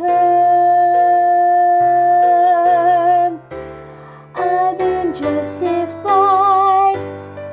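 A woman singing the alto line of a choral gospel song over instrumental accompaniment. She holds one long note that begins to waver with vibrato near its end, about three seconds in, then goes quieter briefly before singing further notes with vibrato.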